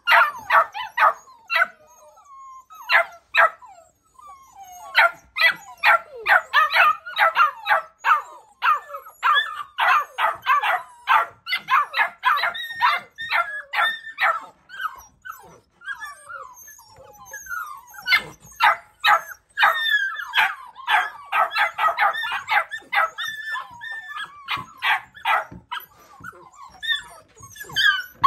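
A litter of Labrador retriever puppies barking together in rapid, high-pitched yaps, with a couple of brief lulls.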